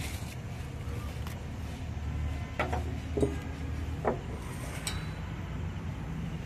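Steady low background hum with a few light clinks and knocks of tableware on the table, about four of them in the middle.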